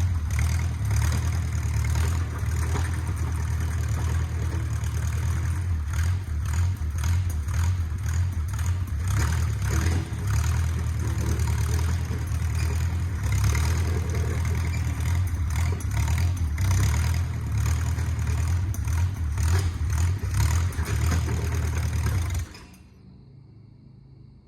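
Engine of a 1950s micro bulldozer running steadily under a loud low rumble with some clatter, then stopping abruptly near the end.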